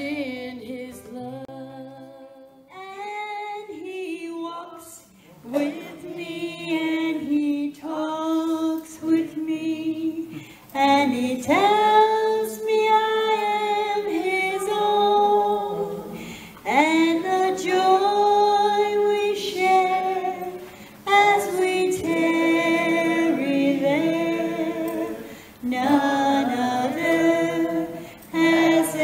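A woman singing solo and unaccompanied, in sung phrases a few seconds long with short breaks between them. The last notes of an acoustic guitar piece fade out in the first two seconds, before the singing starts.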